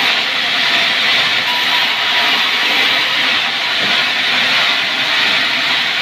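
Sawmill saw cutting sengon wood into beams: a steady, loud, even rushing noise with no breaks.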